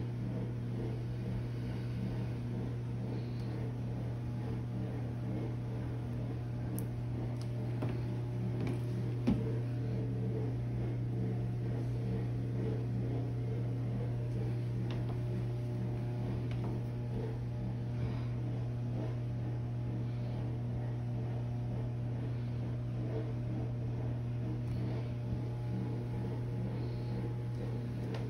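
A steady low hum with a faint click about nine seconds in.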